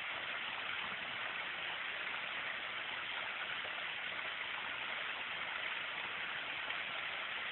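Water from an artificial rock waterfall splashing into a swimming pool: a steady, even rush of falling water.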